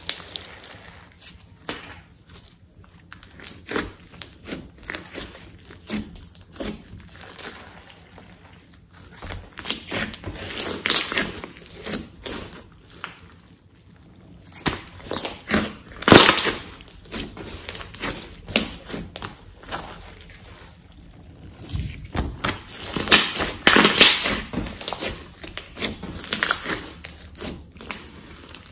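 Thick slime mixed with clay being squeezed, stretched and folded by hand, giving sticky crackles and squelches in irregular clusters. The bursts are louder around the middle and again near the end.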